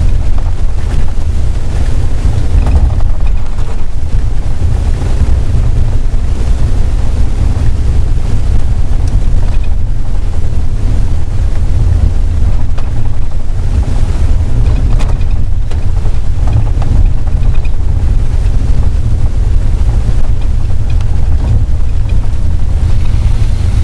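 Steady low rumble of a vehicle driving along a highway: engine and road noise, with wind buffeting the microphone.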